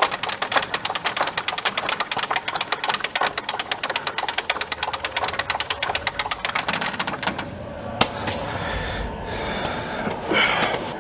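Jack being worked by hand with a ratcheting handle to lift the tank's track, giving a fast run of metallic ratchet clicks with a high ringing. The clicking stops about seven seconds in, followed by a single click and light handling noise.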